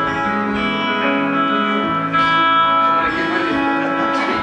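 Live band playing an instrumental passage between sung lines: strummed acoustic guitar and electric guitar over sustained keyboard chords, with no singing.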